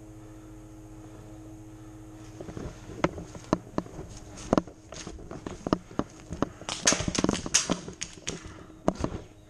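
Footsteps and body movement through dry leaves and brush: irregular crunches and snaps begin about two seconds in, with a dense stretch of crackling rustle a little past the middle.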